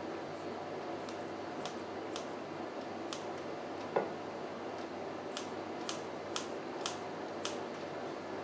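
Kitchen scissors snipping sun-dried tomatoes: short, crisp snips, a few at first and then about two a second in the second half, with one duller knock about four seconds in.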